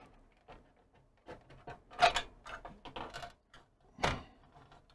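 A monitor's circuit board being worked free of its plastic chassis clips and slid along: a run of light clicks and scrapes, with louder knocks about two seconds in and again at about four seconds.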